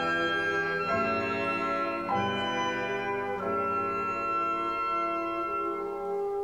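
Symphony orchestra playing slow, sustained chords that shift about a second in, again about two seconds in and again at three and a half seconds. Near the end the lower parts drop out, leaving a few held higher notes.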